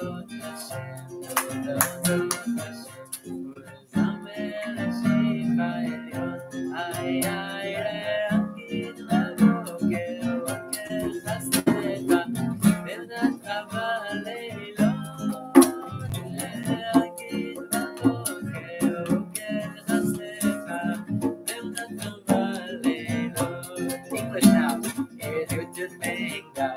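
Acoustic guitar strummed in a steady rhythm, accompanying a man singing a song in Hebrew.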